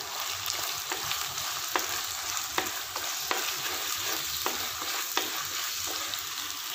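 Chopped onion and curry leaves sizzling in hot oil in a kadai while a wooden spatula stirs them, scraping the pan about once a second. The onions are being sautéed until soft.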